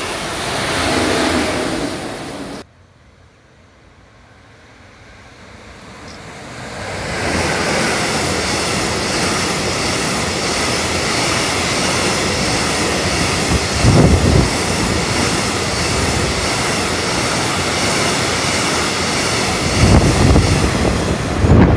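A Deutsche Bahn ICE passenger train running past, cut off suddenly after about two and a half seconds. Then a freight train of empty container flat wagons approaches, swelling from faint to a steady loud rumble of wheels on rails as it passes close by, with a few low thumps in the second half.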